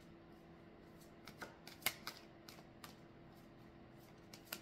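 Tarot cards being handled: a scatter of irregular, short clicks and snaps, over a faint steady hum.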